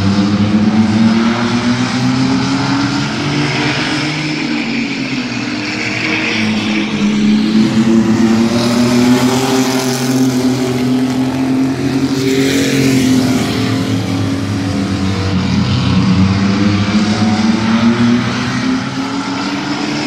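Mini-truck class race trucks running laps on a paved oval, their engines rising and falling in pitch as they come through the turn and past the fence. It is loudest about ten seconds in, when two trucks go by side by side.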